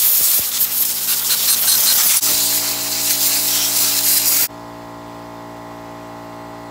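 Compressed air hissing loudly from a blow gun with an inflation nozzle as it blasts dirt out of a chainsaw's power head. The hiss stops suddenly about four and a half seconds in, leaving a steady hum underneath.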